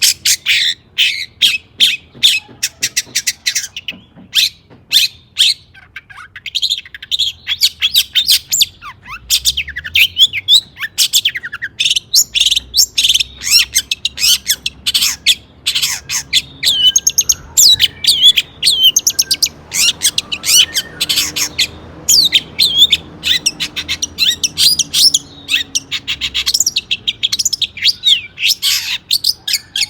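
Long-tailed shrike singing continuously, a fast string of short, sharp chattering notes with brief pauses.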